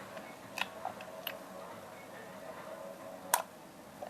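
Slime being squished and stretched by hand, giving three sharp pops and clicks, the loudest about three and a half seconds in.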